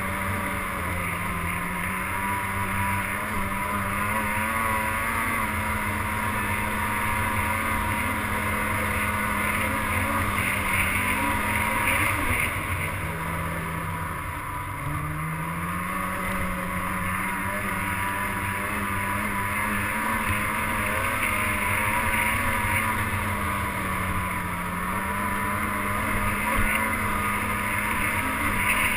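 Snowmobile engine running steadily while riding along a trail, its pitch rising and dipping a little with the throttle, with a short drop in revs about halfway through.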